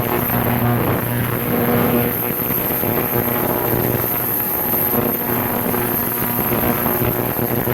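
Engine running steadily at an even pitch, its note swelling and fading slightly, with a constant thin high whine above it.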